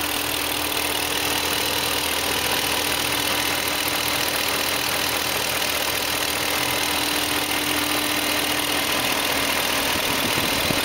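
BMW E38 V8 engine idling steadily on freshly fitted Bosch Platinum 4 spark plugs and new Bremi plug boots, running smoothly and quietly with a light ticking. The secondary air pump whirs along with it.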